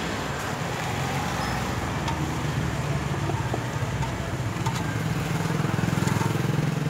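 Street traffic: a motor vehicle engine rumbles, growing louder about five to six seconds in, with a few light clicks.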